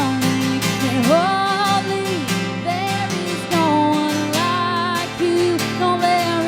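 Music: a song with strummed acoustic guitar under a sung melody.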